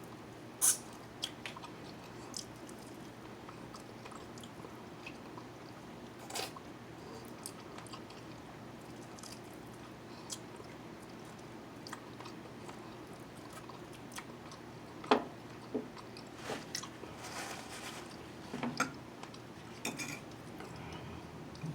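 A person chewing food close to the microphone, with scattered short sharp clicks and smacks, a few of them louder, mostly in the second half.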